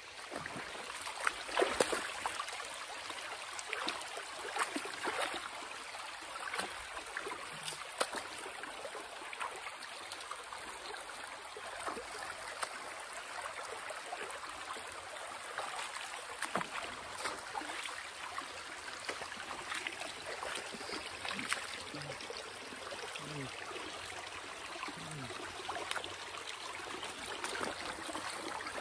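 Shallow creek running over stones, a steady rushing hiss, with scattered clicks and knocks of footsteps along the rocky bank; the loudest knocks come about two seconds in.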